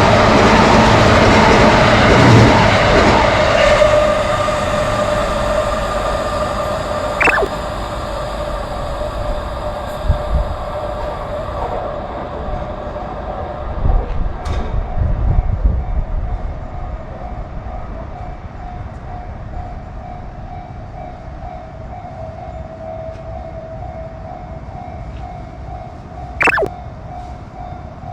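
Train running through a Japanese railway level crossing, its rumble loud at first and then fading away, while a steady warning tone that fits the crossing's bell keeps sounding. A short sliding whistle-like tone comes about seven seconds in and another near the end.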